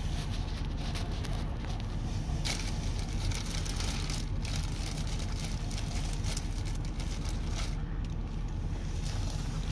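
A vehicle engine idling, heard from inside the cab as a steady low rumble. From about two and a half seconds in, an uneven crackling hiss runs over it.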